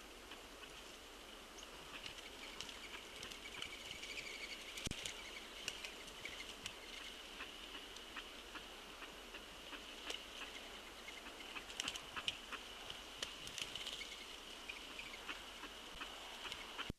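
Scattered light clicks and taps of birds pecking and shuffling at a seed-covered feeder patio, over a steady high-pitched hum from the feed's microphone.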